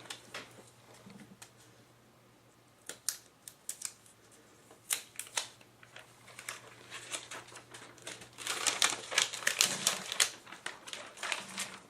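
Irregular light clicks and taps of hands handling a laptop screen panel and its plastic parts, sparse at first and coming in a quick cluster about three-quarters of the way through.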